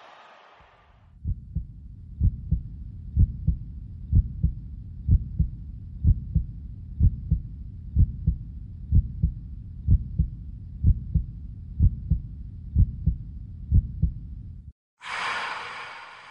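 Heartbeat sound effect: low double thumps, about one pair a second, which stop abruptly. Just after, near the end, a short burst of brighter noise starts suddenly and fades away.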